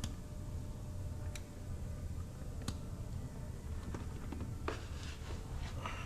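Sparse light plastic clicks and taps over a steady low hum: a few spaced clicks, then a quicker cluster near the end, as hands work the wiring connector clips loose on a car door's trim panel.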